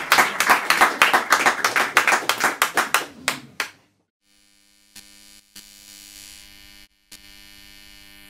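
Small audience applauding, the clapping thinning to a few last claps and stopping about three and a half seconds in. After a moment of near silence, a faint steady hum follows.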